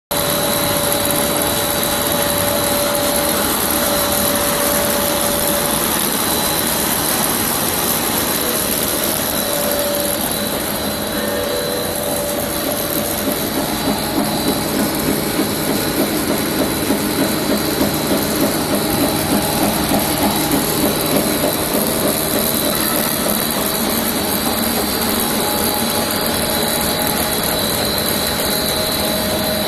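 Machinery of a dry pet food production line running, with electric motors and screw conveyors making a steady mechanical din and a steady high whine. In the middle, a rhythmic pulsing about twice a second comes in for several seconds.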